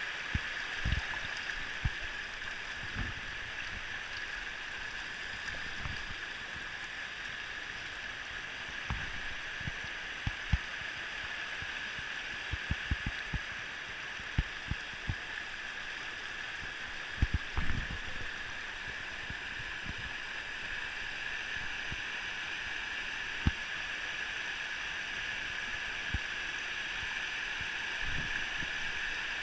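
Shallow river water rushing over a rock ledge in small rapids: a steady rushing hiss, with scattered short low bumps.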